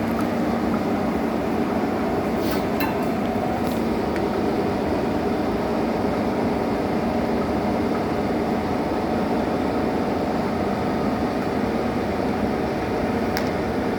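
1M63 heavy engine lathe running, its motor and gearbox giving a steady mechanical hum. A few light clicks come about three seconds in and once near the end.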